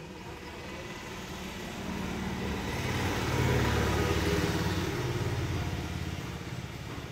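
A motor vehicle's engine passing by. Its hum swells to a peak about halfway through and then fades away.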